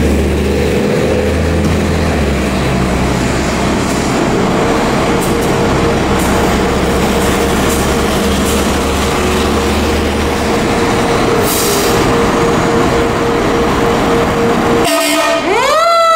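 Fire engine's diesel running loud in the station bay as the pumper pulls out, with a steady tone under it. About 15 seconds in, a fire truck siren starts winding up, rising in pitch.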